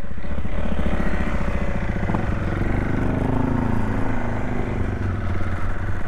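Motorcycle engine running steadily, then revving as the bike pulls away, its pitch rising and falling about halfway through.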